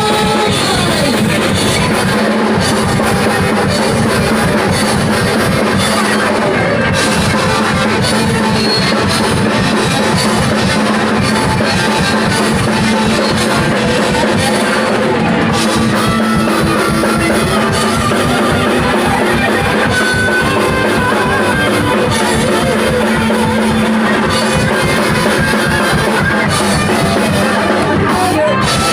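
A rock band playing live: drum kit, electric guitars and bass at a steady, fast beat, loud and without a break.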